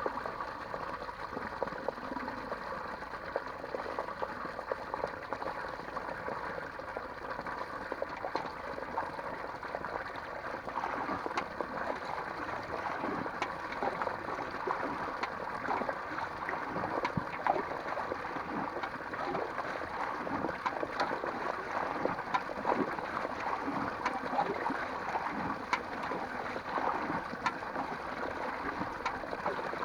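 Water running steadily, with many small splashes and drips.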